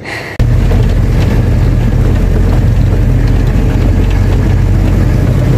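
Loud, steady rumble of a moving vehicle heard from inside its cabin. It starts abruptly about half a second in.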